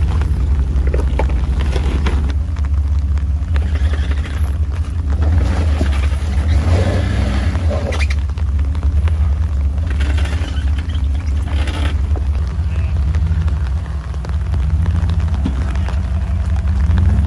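Jeep engines running at low revs as the rigs crawl over rocks, a steady low rumble throughout. Two patches of louder noise come in the middle, and near the end the engine note rises and falls a few times.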